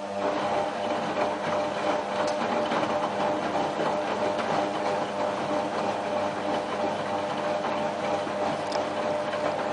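Whirlpool AWM4066 front-loading washing machine running in its cottons prewash programme: the machine's running sound starts suddenly just as it begins, then holds steady as a hum with several tones over a busy mechanical noise.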